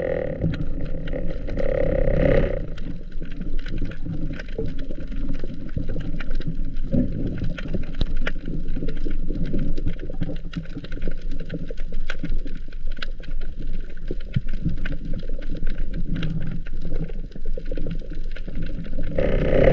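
Underwater sound picked up by a camera in a waterproof housing over a coral reef: a muffled rushing with a dense crackle of short clicks. A louder droning sound comes in for the first couple of seconds and again near the end.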